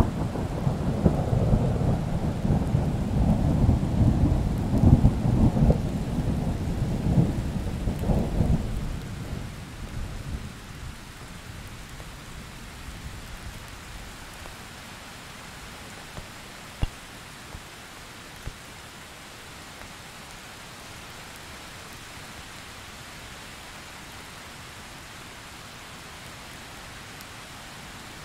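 Thunderstorm: a long roll of thunder rumbles low and loud, then dies away about ten seconds in. Steady rain follows, with a couple of sharp ticks a little later.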